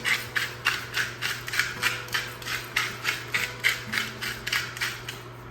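Salt grinder being twisted, its mill grating in a quick, even run of about four crunchy strokes a second, then stopping near the end.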